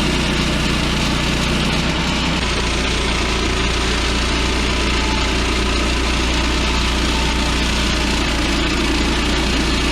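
Gas engine of a Woodland Mills HM130MAX band sawmill running at a steady speed, driving the band blade.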